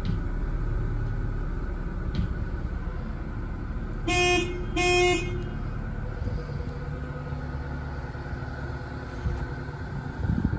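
The emergency buzzer in the truck's cargo box sounds twice, two short buzzing tones of about half a second each, around the middle. A switch clicks near the start, and a steady low rumble runs underneath.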